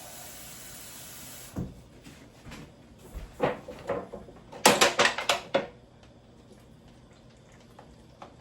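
A cup of water poured into a pan of seafood, a steady hiss for about a second and a half. It is followed by a run of sharp clattering knocks of kitchenware, loudest about five seconds in.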